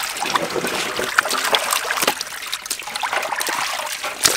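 Water splashing and trickling as raw chicken wings are rubbed and swished by hand in a large metal basin of water, with many small splashes and drips. Near the end comes a single sharp knock.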